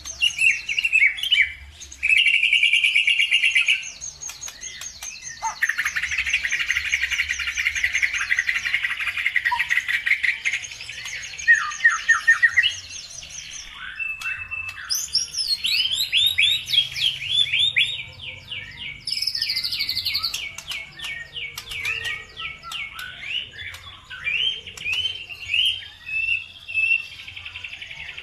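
Songbirds singing in long, fast trills and quick chirped phrases, some notes sweeping up in pitch; a lure song of the kind played to set caged songbirds singing.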